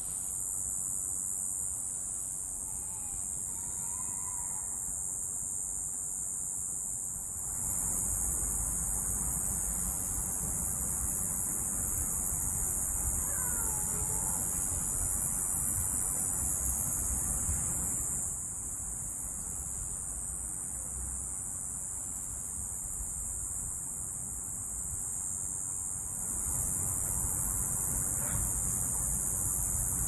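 Unbroken, very high-pitched insect shrill, which the recorder cannot identify and wonders is a cicada. A low rumble swells underneath for long stretches in the middle and near the end.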